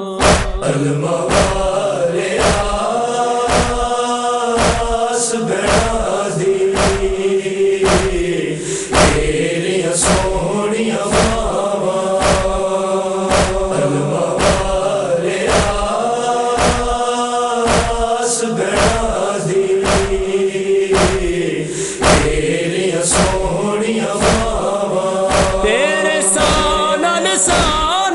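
A noha lament chanted by male voices over a steady low thump about twice a second, the matam (chest-beating) beat that carries a noha's rhythm.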